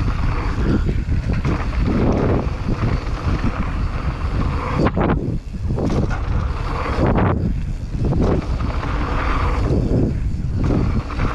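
Mountain bike riding fast down a dirt trail: wind buffeting the camera's microphone over the rumble and rattle of knobby tyres on hardpack. The hiss thins out briefly three times.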